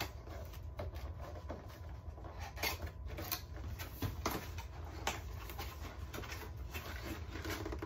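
Cardboard box being pried open by hand: scattered scrapes, taps and rustles as the flaps and a cardboard insert are pulled loose.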